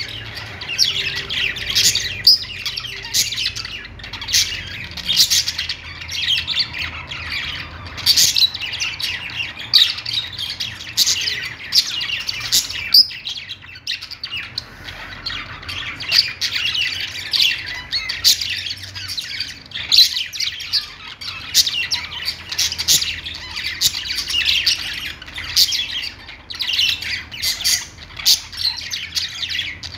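A group of budgerigars chirping and chattering without pause, with many short sharp calls over a steady warble.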